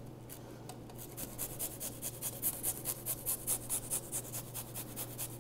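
A garlic clove being grated on a microplane rasp grater: quick, even scraping strokes, about five a second, starting about a second in.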